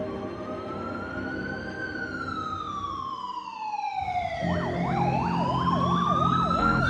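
Emergency vehicle siren: a slow wail that rises, falls and rises again, joined about halfway through by a second, fast yelping siren, over low road rumble.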